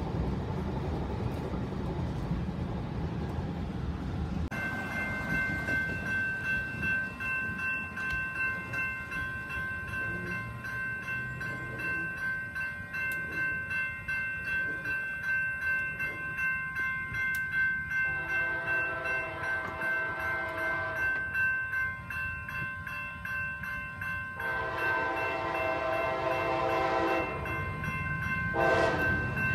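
For the first few seconds, road rumble inside a moving vehicle. Then a railroad crossing's warning bell rings steadily with a regular pulse while the gates are down. An approaching train sounds its horn in two long blasts, then begins a third near the end, louder as it nears.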